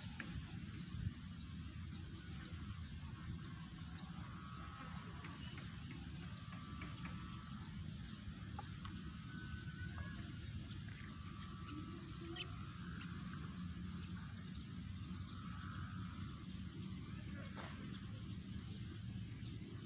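Frogs calling faintly: short trilled calls, each about a second long, repeating every second or two over a steady low outdoor rumble, with a sharp click about a second in.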